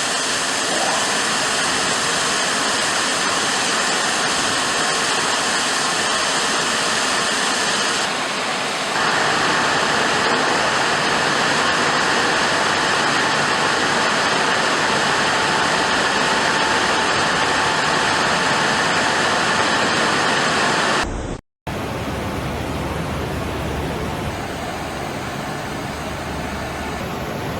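Steady rushing noise of water spray and running machinery in an automatic tunnel car wash. It grows a little louder about nine seconds in, breaks off for a split second about three-quarters of the way through, and then resumes slightly quieter.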